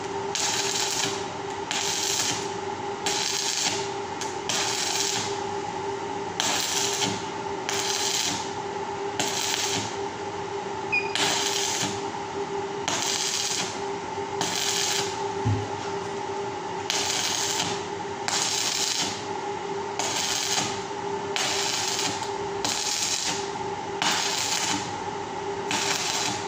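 Electric arc welding crackling in short bursts, about one a second, as the welder strikes and breaks the arc to tack a round steel wire-mesh grill. A steady hum runs underneath.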